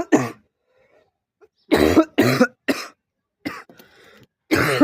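A man coughing hard in a series of short, loud coughs that come in groups, about six in all. He has a heavy cough.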